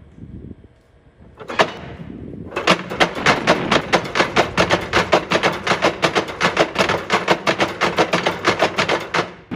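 Wooden noise-maker sculpture with a row of hammers knocking in a rapid rattling clatter, several strikes a second. A single knock comes first; the clatter starts about two and a half seconds in and stops just before the end.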